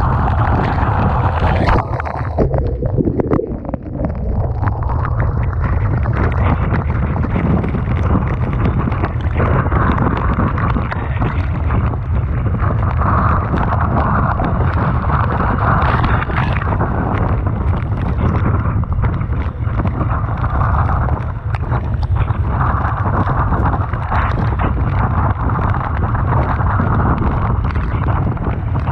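Typhoon-strength wind buffeting the microphone with a constant heavy rumble, over the wash of rough sea and waves breaking on the shore.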